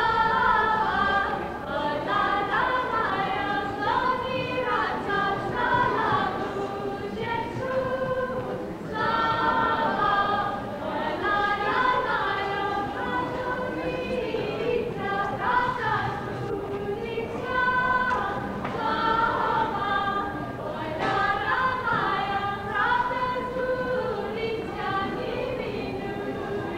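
A group of voices singing a folk song unaccompanied, in long phrases with brief breaks between them.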